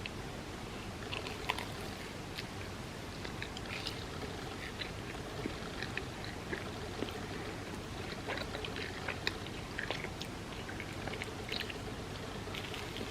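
Close-miked chewing of soft, chewy food, with many small, irregular wet clicks and smacks of the mouth.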